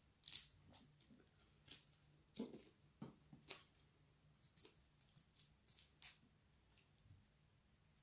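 Faint, scattered small crackles and clicks of cooked shrimp shells being peeled apart by hand.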